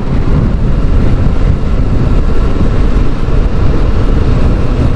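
Suzuki GSX600F's inline-four engine running under way on the road, largely covered by a loud, steady rush of wind on the microphone.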